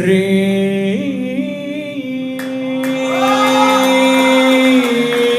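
A male chanter holding one long sung note of a religious chant, stepping up in pitch about a second in and then sustaining it.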